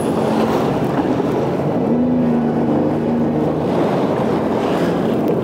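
Jet ski engine running under way, with a steady hum under the rush of wind and water over choppy sea. About two seconds in the engine pitch rises, holds, and drops back after about a second and a half.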